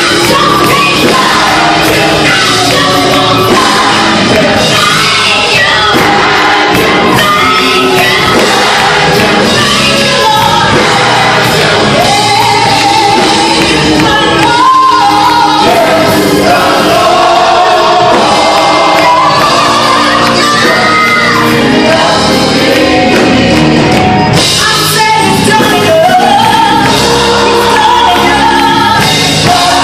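Church worship music: voices singing a song with instrumental accompaniment, loud and continuous.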